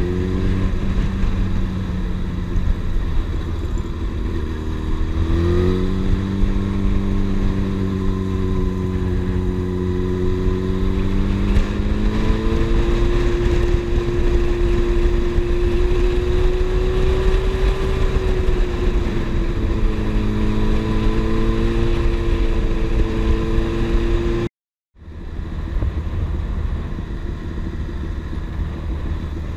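Yamaha FZ6 Fazer's inline-four engine running on the move at moderate, fairly steady revs over a steady low rush, with the revs climbing about five seconds in as the bike accelerates. The sound cuts out for a moment near the end, then comes back.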